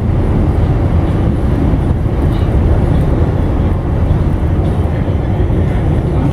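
Inside an R46 subway car running through a tunnel: a loud, steady low rumble of the car's wheels on the rails and its running gear.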